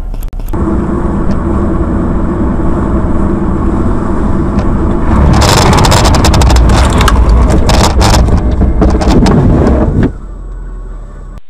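Car engine and road noise heard from inside a vehicle. From about five seconds in comes a rapid run of loud bangs and crunches, lasting about five seconds, as in a car crash. It drops off suddenly near the end.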